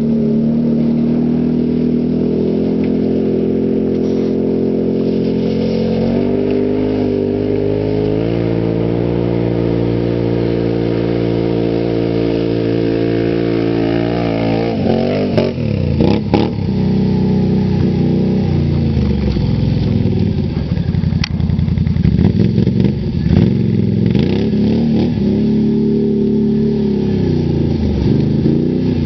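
Can-Am Outlander ATV's V-twin engine held at high revs under load up a sand hill, its pitch climbing slowly in small steps. About halfway through, the revs drop sharply and then rise and fall again and again as the throttle is blipped.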